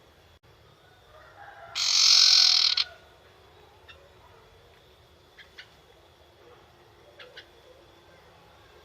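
Young sirtu (golden-bellied gerygone) giving a few faint, very short chirps, scattered singly and in pairs. About two seconds in there is a loud harsh rasping noise lasting about a second.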